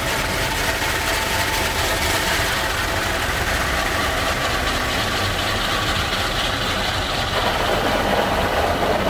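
Automatic car wash heard from inside the car's cabin: water jets spraying steadily over the windshield, roof and glass, with the steady hum of the wash machinery.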